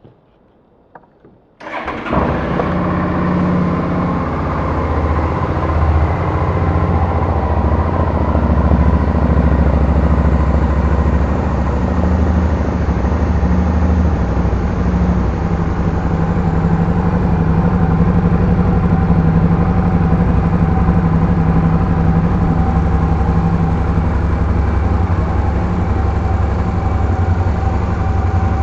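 Suzuki DL650 V-Strom's V-twin engine being started: a couple of clicks, then it catches about two seconds in and settles into a steady idle through its exhaust.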